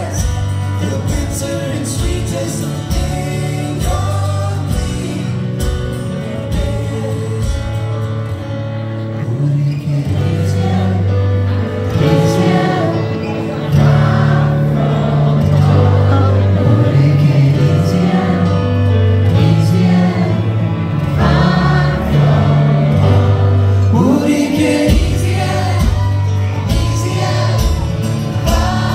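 Live acoustic folk-pop band: strummed acoustic guitar and keyboard with sung vocal harmonies and sustained low keyboard notes, getting louder about halfway through.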